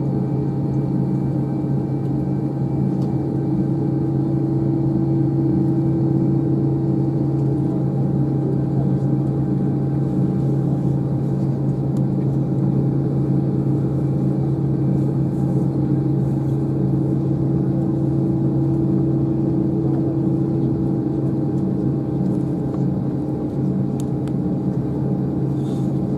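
Steady droning hum inside an Airbus A321 cabin on the ground, with a few fixed hum tones over a rush of air; the aircraft's systems are running while it waits for de-icing.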